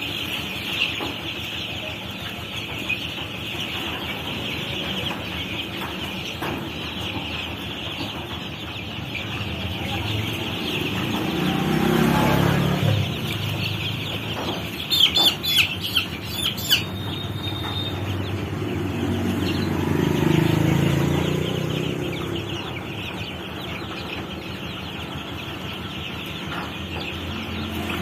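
A large flock of young chicks peeping without pause, a dense high-pitched chorus. About halfway through, a few loud, sharp calls ring out close by, and a low rumble swells up twice in the background.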